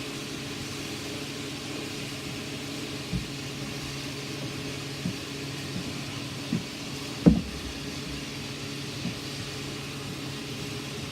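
Chicken and seasoning cooking in a frying pan over a steady hum and hiss, with a few short knocks of the stirring utensil against the pan, the loudest about seven seconds in.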